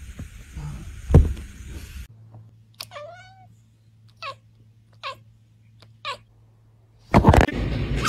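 A tortoiseshell cat meows once, then gives three short meows about a second apart. There is a thump about a second in and another near the end.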